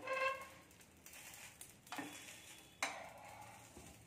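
Patishapta crepe frying with a faint sizzle on a hot nonstick pan, while a metal spoon scrapes and taps against the pan. Sharp clinks come about two seconds in and again just before three seconds.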